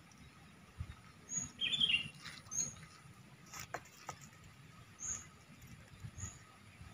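Scattered short, high chirps of small birds, with a brief louder call just before two seconds in and a few faint clicks.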